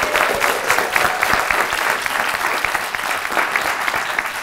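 A group of people applauding, with many hand claps close together and individual claps standing out.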